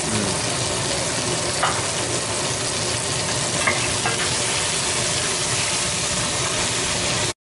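Shrimp heads sizzling in oil in a stainless steel sauté pan while being stirred, with a few light clicks of the wooden spoon against the pan. The sizzle cuts off suddenly near the end.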